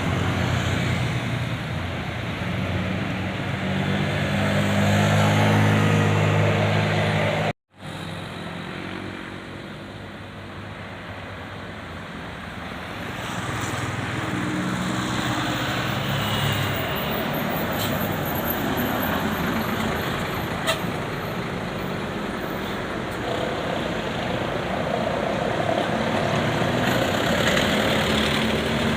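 Heavy vehicle engine running in road traffic, with a low steady engine tone at first. The sound cuts out abruptly about seven and a half seconds in, then road noise carries on.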